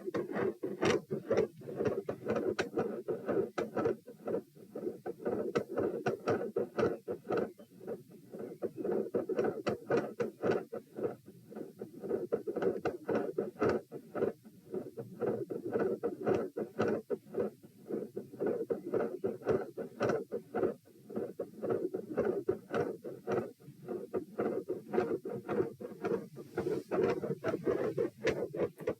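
Heart sounds picked up through a stethoscope, beating fast at around 110 to 120 beats a minute. A continuous noise runs under the beats and swells and fades every few seconds with breathing: a pronounced continuous phasic respiratory pattern.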